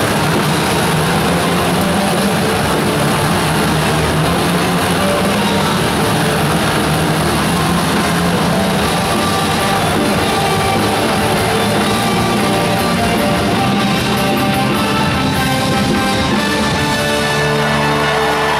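Loud rock music with guitar and drums over the steady running of several motorcycle engines circling inside a steel-mesh globe of death.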